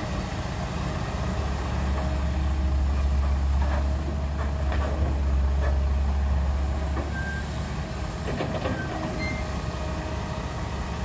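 Cat 312B hydraulic excavator's diesel engine working hard as it lifts and swings a bucket of soil over the dump truck, running heavier for the first several seconds and then easing off. Scattered clunks of earth and rock come about 4 to 5 seconds in and again near the end.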